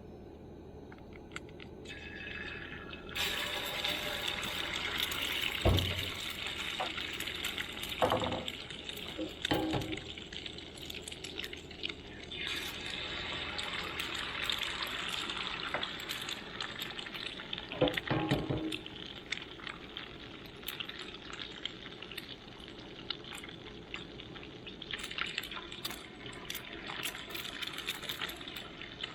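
Breakfast food sizzling and crackling in a frying pan, the sizzle swelling and easing off several times. There are a few sharp knocks of a utensil against the pan.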